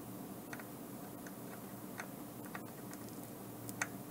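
Faint, irregular small crackles and pops from solder paste (flux) sizzling under a soldering iron tip as solder melts on an IC chip's pins, the loudest pop near the end, over a steady low hum.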